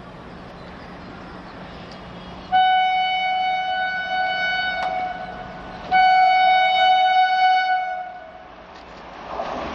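WAP-4 electric locomotive's horn sounding two long blasts, each about three seconds. The second blast sags slightly in pitch as it ends. Near the end the rumble of the approaching train rises.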